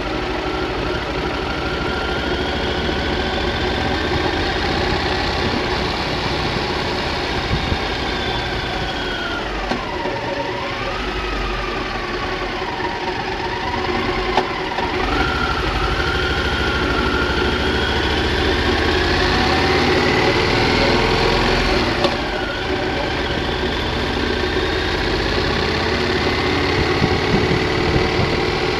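Triumph Thunderbird motorcycle engine running under way on a slow ride, its pitch falling as the bike slows about a third of the way in and rising again as it pulls away. A brief sharp dip and climb in pitch comes about three-quarters of the way through.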